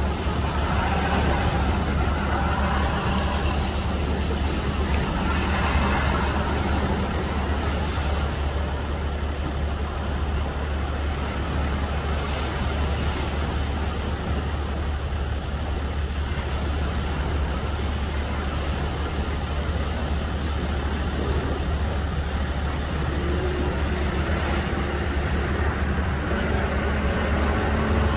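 Outboard motors of a ski boat idling in the surf, mixed with steady wave and wind noise.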